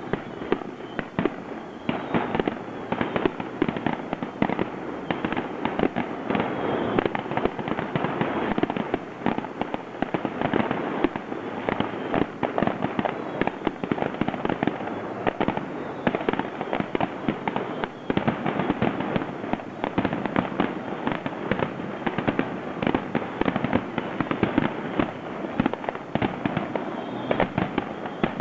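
Aerial fireworks shells bursting in rapid, overlapping succession: a dense, unbroken barrage of sharp reports, many each second.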